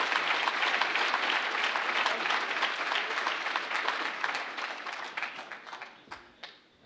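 Audience applauding: dense clapping that thins out and dies away over the last two seconds or so, with a few stray claps at the end.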